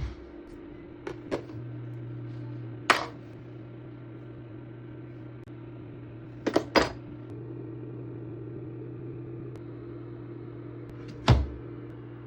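Skincare bottles and jars set down one by one onto the shelves of a mini fridge: a series of sharp clicks and knocks, in pairs about a second in and again past halfway, with single louder knocks around three seconds in and near the end. A steady low hum, typical of the running mini fridge, lies under them throughout.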